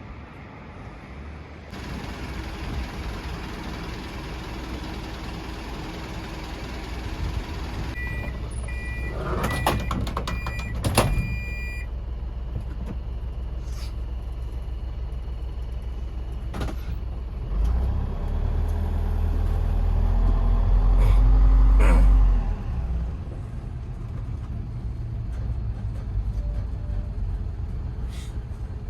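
Asa Seaside Railway DMV (dual-mode bus-railcar) running, with its engine steady. A series of two-tone electronic warning beeps sounds for a few seconds, along with sharp clicks and hisses. Later the engine revs up, rising in pitch and loudness, then drops back.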